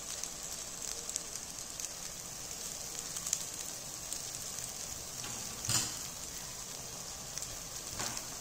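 Eggs and tomato masala sizzling in a hot nonstick kadhai on the pan's leftover heat, the gas already off. It is a steady hiss with scattered crackles, and a sharper pop a little past halfway.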